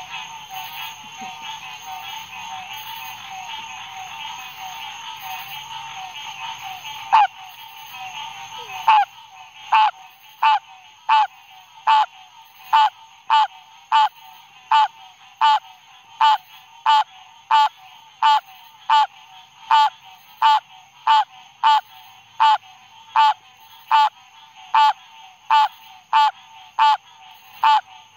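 A male green treefrog calling. It gives two single calls about 7 and 9 seconds in, then a steady series of short, pitched calls at about three every two seconds, its throat sac swelling with each one. Behind it runs a steady night chorus with a constant high whine.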